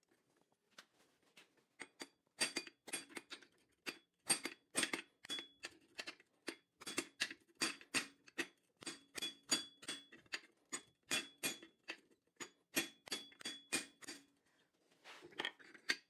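Hand hammer striking hot steel bar on an anvil, forging a taper: a steady run of sharp ringing blows, about two to three a second, starting about two seconds in, with a few lighter taps near the end.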